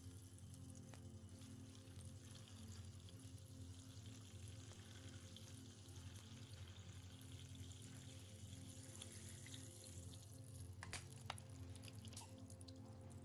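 Quiet ambient background music with sustained low tones, plus two faint clicks near the end.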